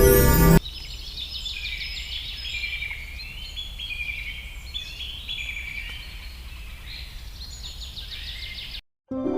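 Birds chirping, with many short, quick, repeated chirps and trills over a faint low rumble. Music cuts off abruptly just before the birdsong and comes back after a brief silence near the end.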